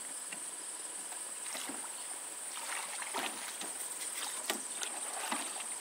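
Rowing an aluminum rowboat: oar strokes splashing softly, with light knocks of the oar in its oarlock about once a second.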